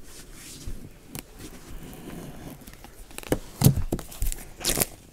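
Cardboard mystery box being handled and pulled open: rustling, scraping and a few sharp knocks and rips of card, loudest and busiest in the last second and a half.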